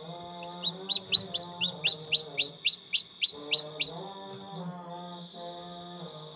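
Chicken chick peeping: a quick run of about a dozen short rising peeps, roughly four a second, lasting a little over three seconds, over background music.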